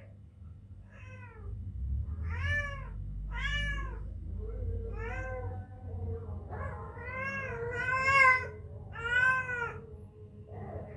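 A two-week-old kitten mewing over and over: about seven high, thin mews, each rising then falling in pitch, the loudest about eight seconds in.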